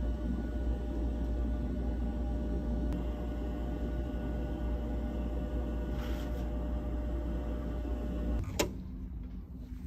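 UV book sterilizer cabinet running with a steady hum of its fan and lamps. About eight and a half seconds in, the low hum drops away and there is a sharp click.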